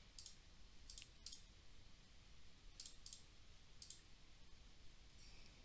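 Faint, sparse clicks of a computer mouse, about six, some in quick pairs, over near-silent room tone.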